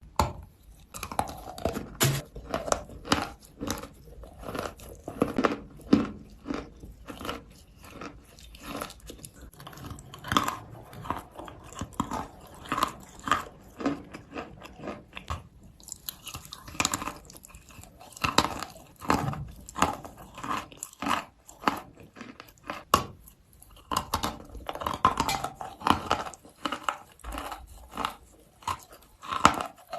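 Natural chalk being bitten and chewed close to the microphone: a steady run of crisp, irregular crunches, with a brief pause about halfway through.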